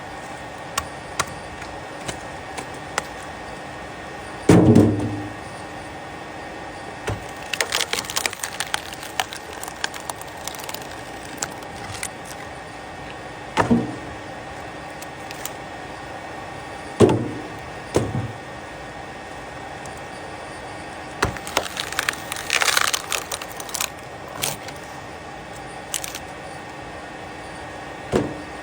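Wood knocking and clattering: several heavier wooden thumps and two spells of quick clicking and rattling, as of wooden pieces being handled and set down, over a steady hum.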